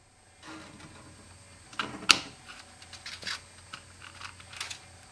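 Aviation snips cutting 22-mesh copper wire screen: a series of sharp snipping clicks as the blades close through the wire, the loudest about two seconds in, with a light rustle of the mesh between cuts.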